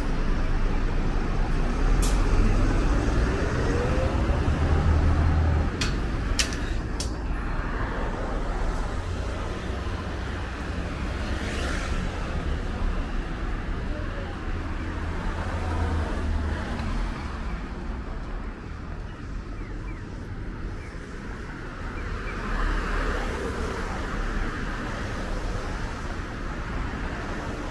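Street ambience with passing road traffic: a steady rumble of vehicles, with a few sharp clicks about two seconds in and again around six to seven seconds in.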